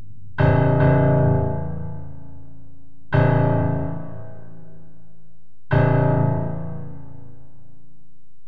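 Piano striking three heavy, low chords about two and a half seconds apart, the first struck twice in quick succession, each left to ring and fade. The sound cuts off abruptly at the end.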